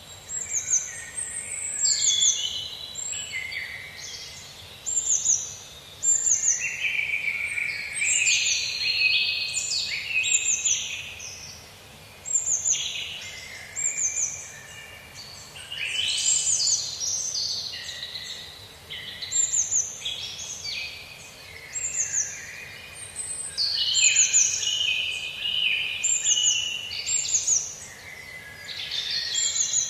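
Several songbirds singing together: many quick, high chirps that slide downward, repeated every second or so, over lower, busier warbling phrases.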